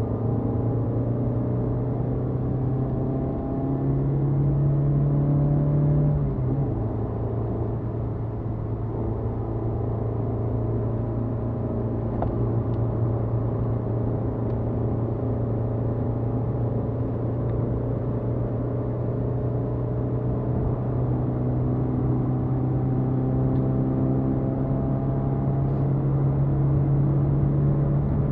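BMW E30 318is's 1.8-litre four-cylinder engine heard from inside the cabin, pulling hard on track. Its note steps up a few seconds in, drops back about six seconds in, then climbs slowly and steadily as the car accelerates.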